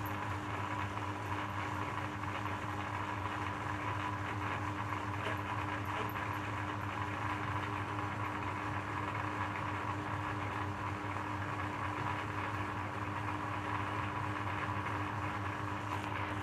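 Electric shredder machine running with a steady, even hum.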